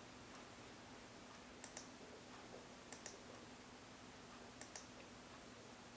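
Faint, sharp clicks of up-arrow button presses as audiometer level settings are stepped up: a quick pair, a single click, then another quick pair, over a faint steady hum.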